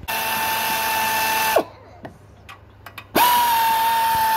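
Power ratchet spinning out the 11 mm bolts that hold the clutch cover. It gives a steady high whine for about a second and a half that winds down as it stops, then a pause with a few clicks, then a second run starting about three seconds in.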